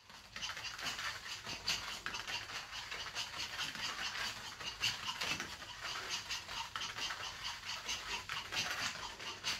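Small dogs' paws and claws pattering and scrabbling quickly and irregularly on a foam play mat as they move about and play.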